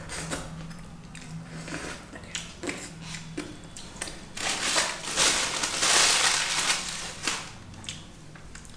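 Close-up eating sounds: small clicks and smacks of fingers in food and of chewing, with a loud crunching, crackling spell in the middle lasting about three seconds.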